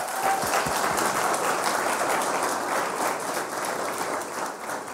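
Audience applauding, a dense patter of many hands clapping that holds steady and then starts to die down near the end.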